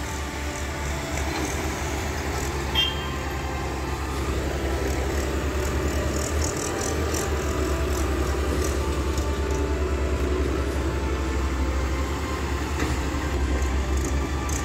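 Diesel engines of tractors and an excavator running steadily, a low rumble that grows a little louder from about four seconds in.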